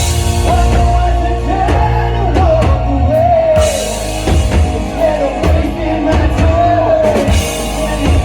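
Live rock band playing, with a drum kit keeping a steady beat under a heavy bass line, and a single lead melody wavering and bending above it.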